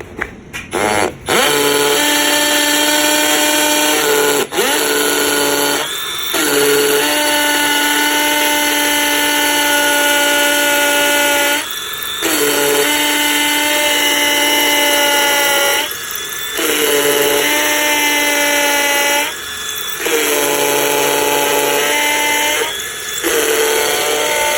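Milwaukee M12 Gen 2 hammer drill running in hammer-drill mode, boring into concrete. A few short blips of the trigger come first, then long runs of steady motor whine and hammering, broken by five brief dips.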